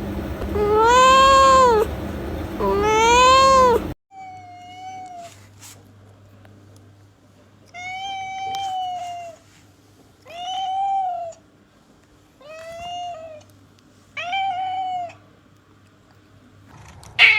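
House cats meowing: two loud, drawn-out meows, then five shorter, quieter meows about every two seconds.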